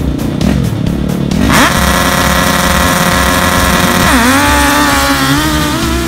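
Drag-racing ATVs with Suzuki GSX-R1000 inline-four engines revving in rapid pulses at the line, then launching at full throttle about a second and a half in with a loud, high, steady wail. About four seconds in the pitch drops sharply and climbs again as the two-speed automatic shifts.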